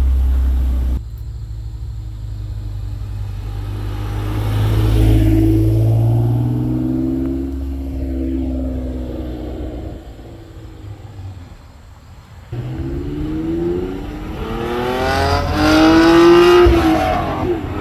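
Sports car engine accelerating hard, its pitch climbing in long rises twice, with the sound changing abruptly about a second in and again around twelve seconds in.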